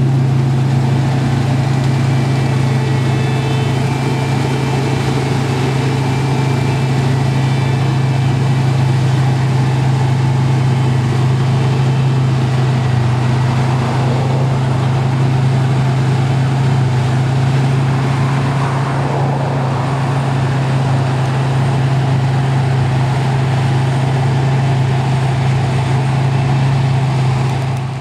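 New Holland CX8070 combine harvester running steadily under load while threshing wheat: a loud, even drone of its engine and threshing machinery with a strong low hum.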